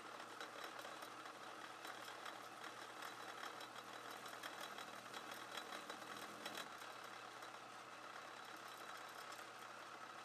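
Atlas 10-inch turret lathe running steadily, its motor and spindle humming with a light clatter, while a small drill in the turret is fed into a steel collet blank; the machine begins to wind down at the very end.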